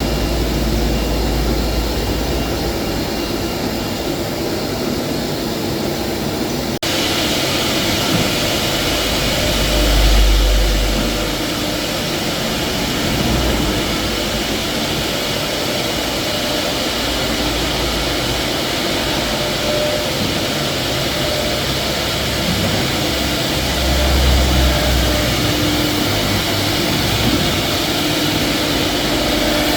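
Four-head CNC router milling a 3D relief panel in glued wood board: a steady, loud machining noise of spinning spindles and cutters in the wood. About seven seconds in, the sound changes abruptly and turns brighter.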